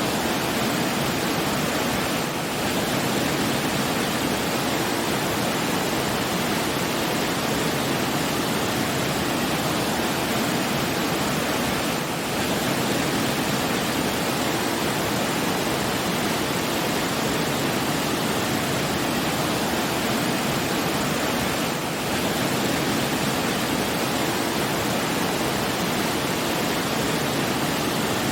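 Steady rushing of falling water, an even hiss with no change in character, dipping slightly in level three times.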